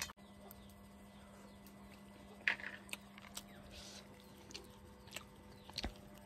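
A person chewing food, faint, with scattered small clicks and crunches, the loudest about two and a half seconds in, over a steady low hum.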